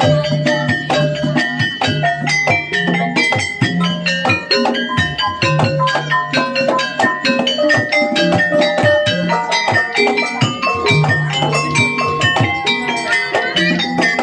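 Gamelan music for a kuda kepang dance: a fast, busy run of struck pitched metal notes over drumming and steady low tones.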